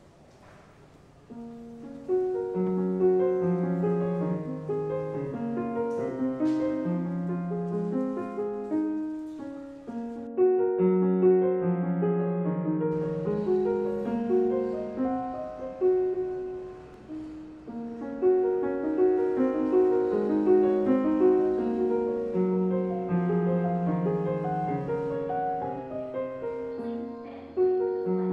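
Piano music in C Phrygian, a slow composed piece of sustained notes over a recurring low note. It comes in about two seconds in.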